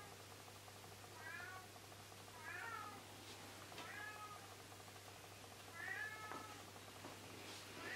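A cat meowing faintly and repeatedly, a short call every second or two, each rising then falling in pitch.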